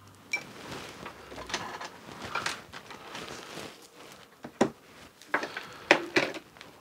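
Handling noise on a workbench: a string of irregular clicks and knocks with light rustling as a multimeter and its test leads are moved into place.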